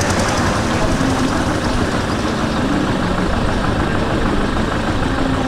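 An engine running steadily, its pitch shifting slightly, over a loud, steady rushing noise.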